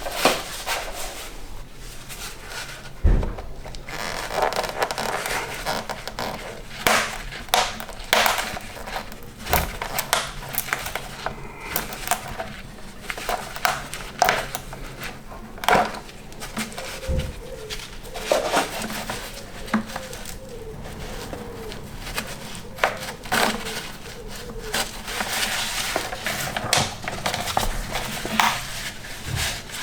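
Scattered clicks, knocks and scraping of hand tools and parts while a car's fuel vapour expansion tank is worked loose from its rusty bolted bracket and push-fit mount in the rear wheel arch, with a wavering squeak around the middle.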